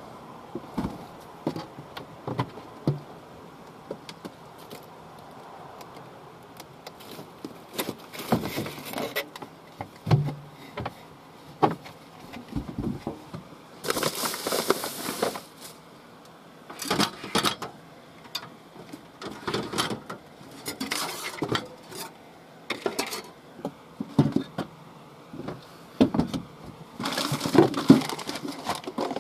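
Plastic food packaging and a plastic bag being handled and crinkled, with scattered clicks and clatter of items set down on a stainless steel sink bench. Two longer crinkling spells come about halfway and near the end.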